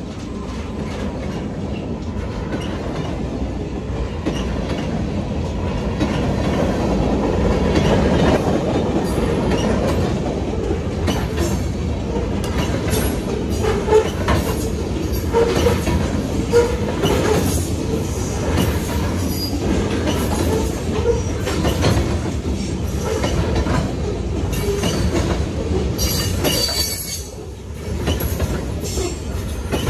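Freight cars, mostly covered hoppers, rolling past on steel rails: a steady rumble that builds over the first several seconds, with wheels clicking over the rail joints in irregular clatters.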